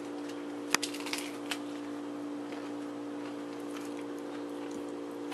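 A child biting into a romaine lettuce leaf wrapped around cucumber, giving a few faint crunches and clicks in the first second and a half. Under it runs a steady low hum.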